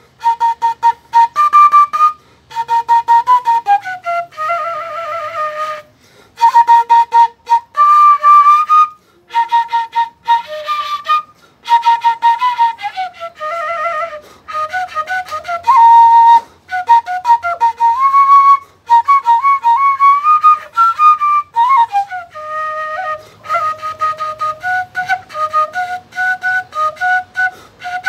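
Keyless transverse flute playing a lively pasillo melody solo, many quick tongued notes repeated in short runs, with brief gaps for breath and a few slides down in pitch between phrases.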